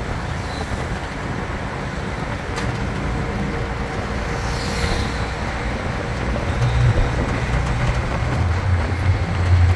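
Auto-rickshaw's small engine running as it drives along, heard from inside the open-sided cabin with road and traffic noise around it. The low engine rumble grows louder near the end.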